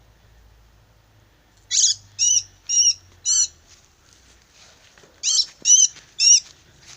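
A bird calling in short, shrill, high-pitched cries: four in quick succession, a pause, then three more.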